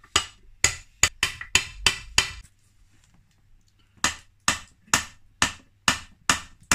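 Hammer blows driving a chilled main crank bearing into a heated aluminium crankcase half of a Honda QR50 engine: sharp metallic taps about two a second, seven in a row, a pause of about a second and a half, then seven more.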